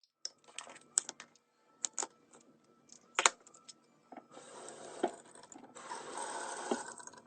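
Skin care products and their packaging handled during an unboxing: a scatter of small clicks and knocks, the sharpest a little after three seconds in, then a steady rustling from about four seconds in.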